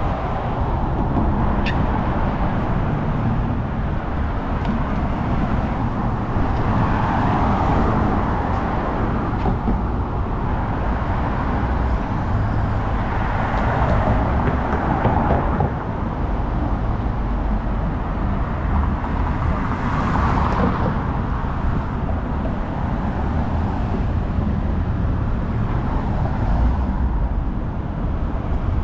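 City street traffic: a steady rumble of cars, with several cars passing by in swells about a quarter of the way in, near the middle and about two-thirds in.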